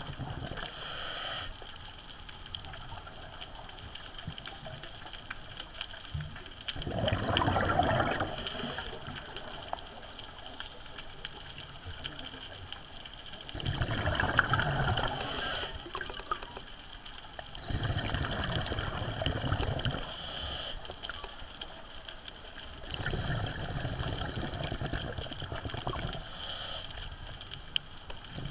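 Scuba diver breathing through a regulator underwater: a gurgling rush of exhaled bubbles lasting a second or two, each followed by a short high hiss from the regulator, repeating about every six seconds.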